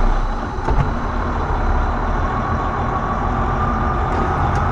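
Semi truck's diesel engine running with a steady low drone, a faint whine coming in about two seconds in.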